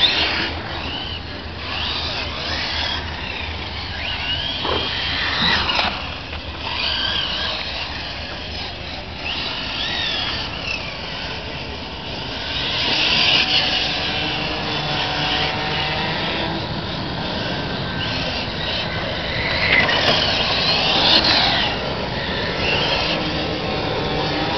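Radio-controlled touring cars racing, their small motors whining high and rising and falling in pitch again and again as they accelerate and slow through the corners, louder as cars pass close about halfway through and again near the end.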